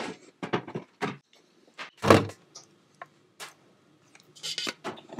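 Scattered short clicks and knocks of kitchen things being handled, the loudest about two seconds in; the hand mixer's motor is not running.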